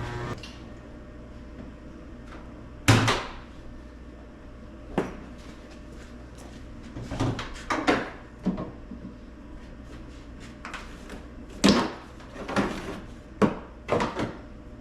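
Irregular knocks and clunks of objects being handled and set down, a dozen or so spread out, the loudest about three seconds in, over a low steady hum.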